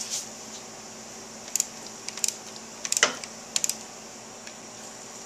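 A handful of sharp metal clicks and clinks from a torque wrench and a combination wrench being fitted onto a motorcycle suspension linkage bolt and nut, the loudest about three seconds in.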